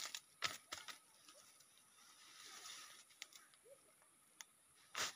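Faint, scattered rustles and crunches of dry leaf litter and plants being handled, with a few short bursts near the start and another near the end.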